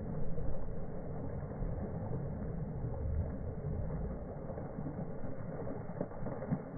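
Low, uneven rumble heard from a boat at sea, with water splashing as a hooked fish thrashes at the surface.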